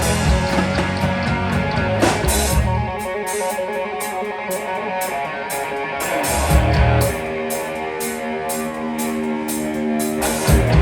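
Pop-rock band music, an instrumental passage with guitar and drums. About three seconds in the bass and kick drop out, leaving guitar over steady cymbal beats, with held guitar notes coming in later.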